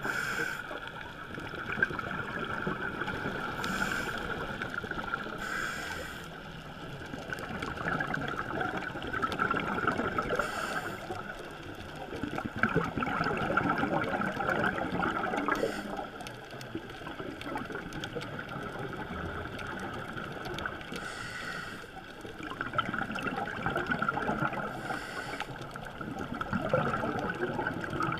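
Scuba divers' regulator exhaust bubbles heard underwater, bubbling and gurgling in swells every few seconds over a steady hiss.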